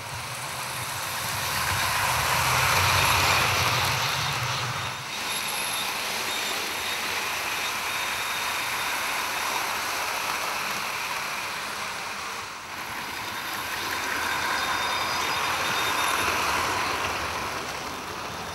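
Recorded full-size train noise played through a home cinema speaker system while model trains run, swelling and fading in waves. It changes abruptly twice, about five and thirteen seconds in.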